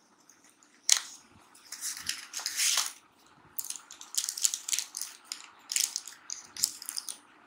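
A metal spoon scooping baking powder from its container: dry scraping and rustling in short bursts, with a sharp click about a second in.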